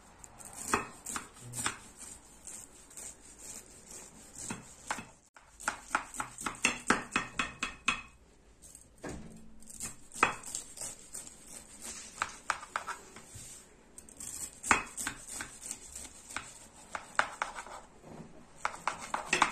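A knife cutting through crisp, syrup-soaked kadayıf in a glass dish: runs of quick crunchy crackles as the blade goes through the baked shredded pastry, several separate cuts one after another.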